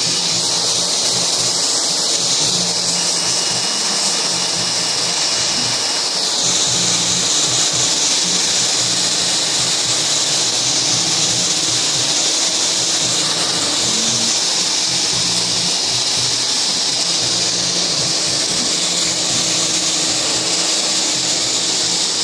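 Handheld hair dryer blowing steadily on wet hair, a loud even rush of air; the rush shifts a little higher about six seconds in.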